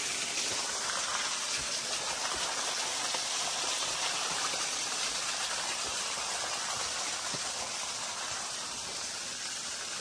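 Steady rushing of a small waterfall, slowly fading, with a few faint scuffs of footsteps on the dirt trail.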